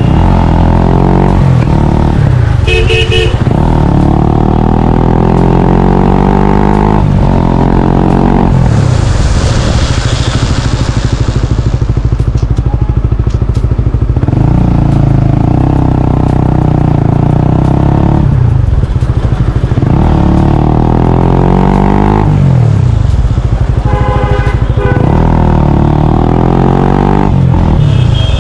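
Honda CBR125R/150R single-cylinder four-stroke with a Yoshimura R77 full-system exhaust, the engine pulling up in pitch over several seconds and dropping back sharply, over and over, as when accelerating through the gears. A hiss rises briefly about a third of the way in.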